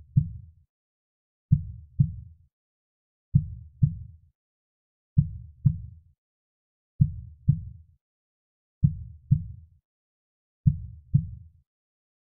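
A soft heartbeat: low, dull double thumps (lub-dub), one pair about every 1.8 seconds, with silence between the beats.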